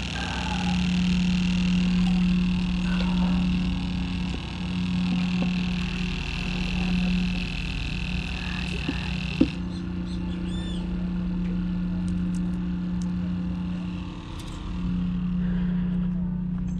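A steady low mechanical hum of a running machine, with a single sharp click about nine and a half seconds in, where the sound changes slightly.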